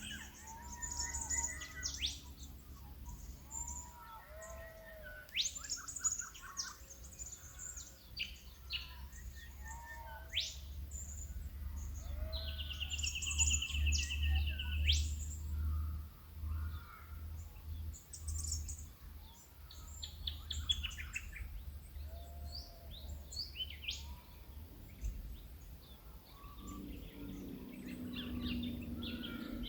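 Dawn chorus of several Australian bush birds calling over one another: sharp falling whistles, short chirps, and a fast rattling trill about halfway through. A steady low rumble runs underneath, and a low, drawn-out call comes in near the end.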